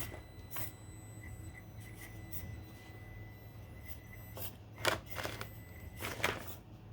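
Traxxas TRX4M mini crawler driving slowly over rocks: its small electric motor whines faintly, with a handful of short scrapes and knocks, clustered in the second half, as the oversized tires grip the rocks and rub against the body.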